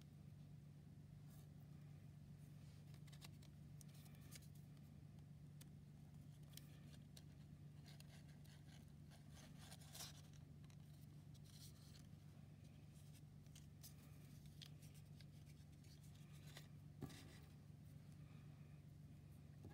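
Near silence: faint rustles and light ticks of folded paper and thin string being handled, over a steady low hum, with a couple of slightly sharper ticks about halfway and near the end.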